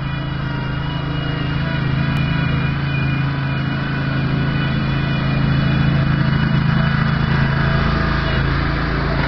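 Backhoe engine running steadily, growing gradually louder over the first half and holding there.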